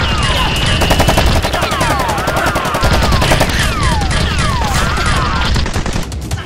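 Automatic-gunfire sound effects dubbed over a toy-gun fight: rapid shots run close together, with falling, ricochet-like whistles about every second and a half. The firing stops about six seconds in.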